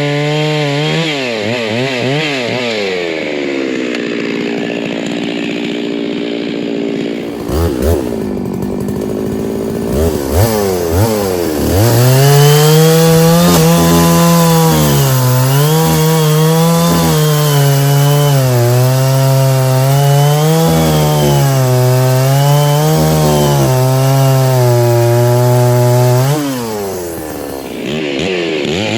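Stihl chainsaw bucking firewood. Its engine note falls off in the first few seconds, revs back up, and holds at high speed with a wavering pitch as the chain cuts through the log. It dips briefly near the end and then picks back up.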